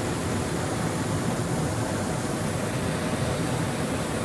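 Steady rushing of a forest river's flowing water, an even hiss with no breaks.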